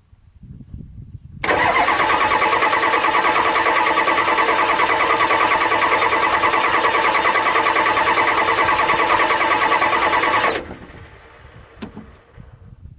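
The starter cranks a 1993 Ford 7.3 IDI V8 diesel with an even, rhythmic churn for about nine seconds, then stops abruptly. The engine never catches: a no-start.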